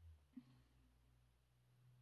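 Near silence: faint room tone with a low steady hum and one faint tap about half a second in.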